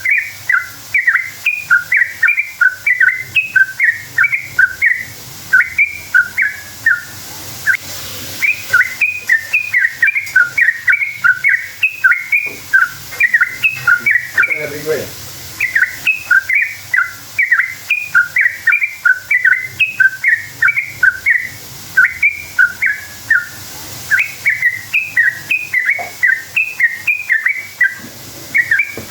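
Yellow-vented bulbul (trucukan) singing a fast, chattering 'ropel' song: long runs of short, bright notes, several a second, broken by brief pauses. It is used as a lure call to make other bulbuls answer.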